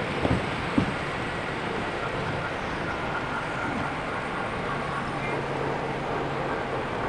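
Steady background hubbub of a large exhibition hall, with two short knocks just under a second in.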